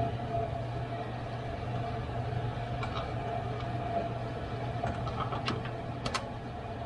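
Hands seating a plastic-tanked car radiator and its surround into their tongue-and-groove mounts: a few short plastic clicks and knocks, clustered about three seconds in and again near the end, over a steady low hum.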